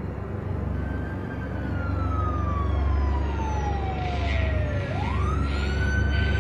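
Siren wailing slowly. One long tone falls over about three and a half seconds, then sweeps quickly back up near the end and holds high. Underneath is a steady low drone.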